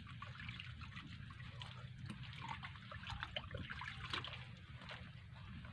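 Faint sea water lapping and trickling around a wooden fishing platform, with many small irregular splashes and drips over a low steady rumble.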